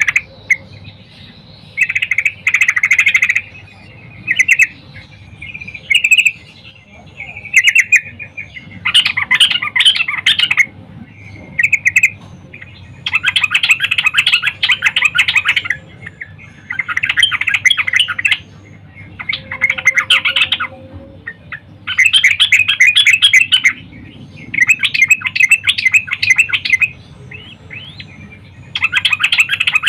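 Female yellow-vented bulbul (trucukan) calling in repeated bursts of rapid chattering notes. Each burst lasts one to two seconds, with short pauses between them.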